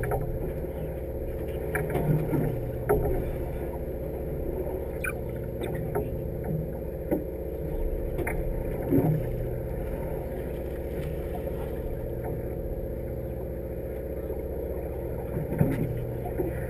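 Steady drone of the sportfishing boat's engine, with a few short knocks and clicks from gear on deck.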